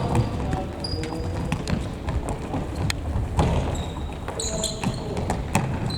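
Indoor futsal play in a gym hall: scattered ball kicks and thuds, with brief squeaks of sneakers on the court floor about a second in and again near the middle, and players' voices in the background.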